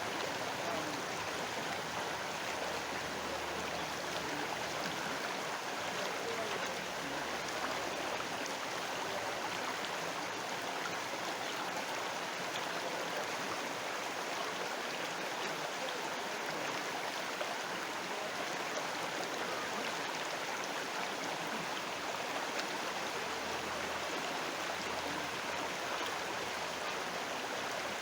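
River water flowing, a steady, even rush with faint small splashes scattered through it.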